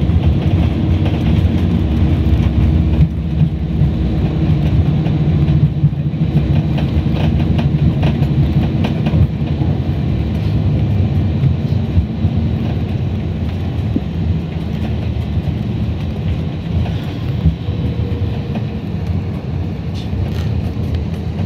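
Cabin noise of an Airbus A321neo rolling along the runway after touchdown: a loud, steady low rumble of the engines and the wheels on the runway that slowly eases as the aircraft slows.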